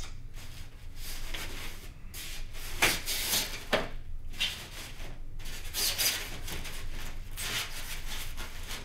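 Hands rummaging in a cardboard box, foam model-aircraft parts and their packaging rubbing and rustling against the cardboard, with a couple of sharper knocks about three seconds in.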